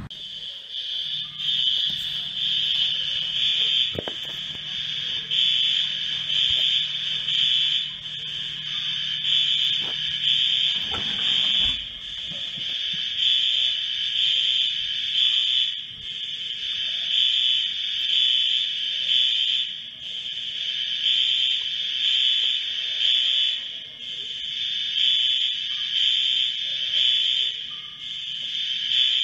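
Apartment building fire alarm sounding continuously: a high tone that pulses in level, set off by a burst water heater. A low hum underneath stops about twelve seconds in.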